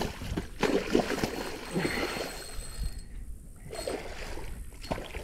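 Spinning fishing reel being cranked in uneven bursts and water sloshing while a large snook is fought on the line.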